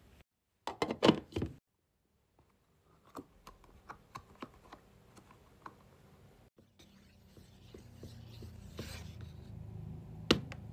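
A wooden craft stick knocking and scraping against a metal pot while stirring melted wax. There is a quick cluster of loud knocks about a second in, then lighter scattered taps. In the last few seconds a low hum comes in, with one sharp click near the end.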